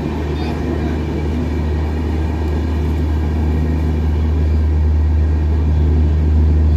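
Indian Railways passenger coaches rolling past close by at speed: a steady, loud low rumble of wheels on rail that grows slightly louder.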